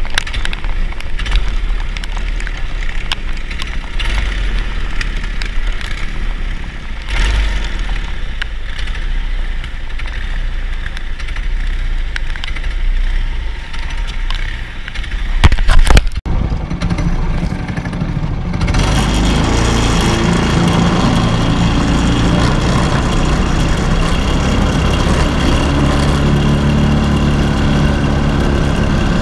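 Go-kart's Honda GX200 single-cylinder engine running, with a low, even rumble. About sixteen seconds in there is a sharp knock, then an engine idles steadily and louder.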